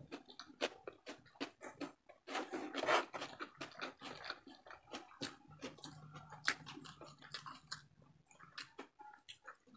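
Close-miked eating sounds from hand-eaten adobo: wet chewing, lip smacks and fingers being sucked clean, heard as a run of short sharp clicks and smacks that is busiest two to three seconds in. A low steady hum runs for about three seconds past the middle.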